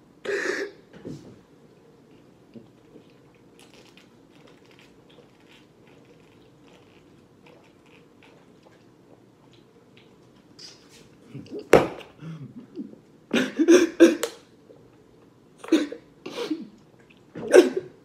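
A man's voice making short non-word vocal noises in a small room. A brief one comes at the very start, and a string of them begins about ten and a half seconds in, the loudest near the end. Between them a low steady hum with a few faint ticks.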